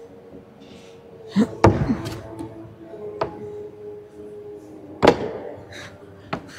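A few sharp knocks and thumps of hands and climbing shoes hitting holds and the panels of a bouldering wall. The loudest comes about one and a half seconds in, another about five seconds in.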